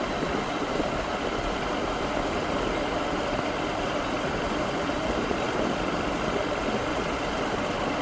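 Motorcycle engine running steadily while riding along, under a constant rush of wind and road noise.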